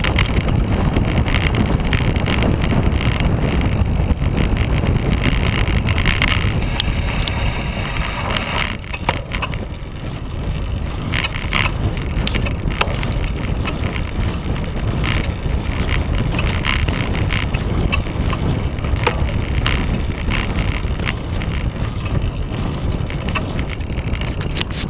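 Wind buffeting the microphone of a bike-mounted camera on a downhill ride. A wide front tyre rolls over snow-covered trail, with frequent short clicks and rattles from the bike over bumps. The rush is loudest for the first eight seconds, then eases off a little.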